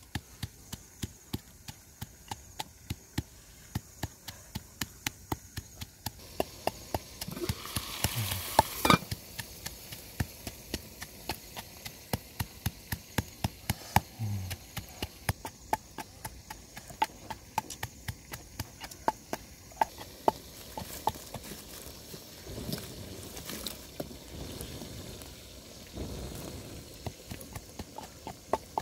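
Wooden pestle pounding in a mortar: steady, evenly spaced knocks, about two a second. A short rush of noise comes about eight seconds in.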